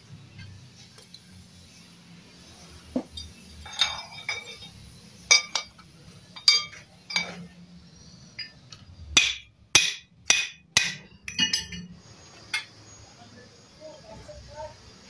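A hammer tapping on metal motorcycle engine parts: irregular sharp metallic clinks, with a quicker run of about five taps a little past the middle.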